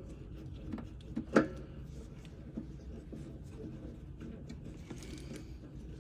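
A few light clicks and taps of small parts and tools being handled, the sharpest about a second and a half in, over a low steady hum.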